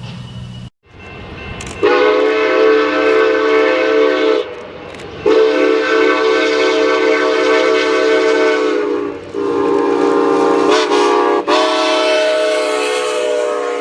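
Multi-note train whistle chord sounding four blasts: long, long, short, long. This is the pattern of the railroad grade-crossing signal. A brief low hum cuts off just before the first blast.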